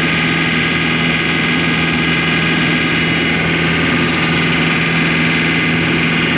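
Kubota R1-301 combine's diesel engine running at a steady speed, loud and unchanging.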